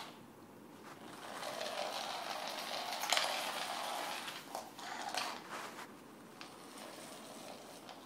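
Clockwork of a wind-up toy mouse running, a rattling whirr for about three seconds with a sharp click near the middle. A few short knocks follow before it goes quiet.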